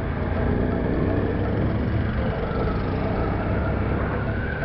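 Motorcycle riding along: a steady low rumble of wind and road noise on the rider's action camera microphone, with the motorcycle's running engine underneath.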